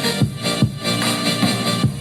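Background electronic dance music with a steady, heavy kick-drum beat, about two beats a second.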